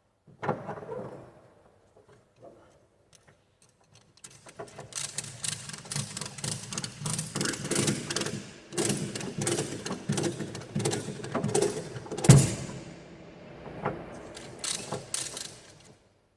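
Ratchet strap being worked: rapid, uneven metallic clicking and rattling, with one loud knock about twelve seconds in.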